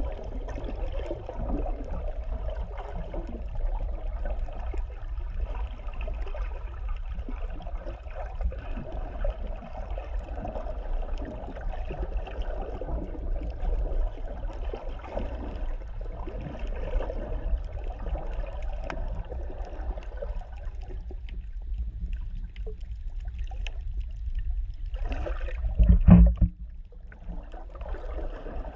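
Underwater sound picked up by a GoPro inside its waterproof housing: a muffled, uneven rush of moving water with a steady low rumble. Near the end there is one loud thump.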